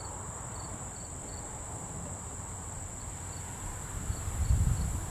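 Steady high-pitched insect chorus, with short repeated chirps over it. A brief low rumble swells about four seconds in.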